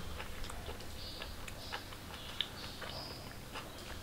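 A person chewing a mouthful of seekh kebab with lemon and ginger: faint, soft wet mouth clicks scattered irregularly over a low steady hum.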